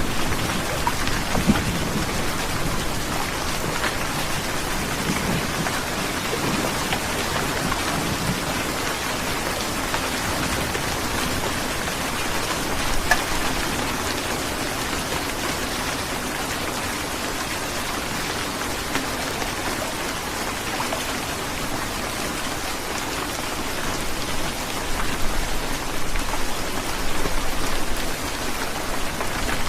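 Heavy rain falling steadily, a dense even hiss of drops on a surface. A low rumble of thunder fades out over the first several seconds.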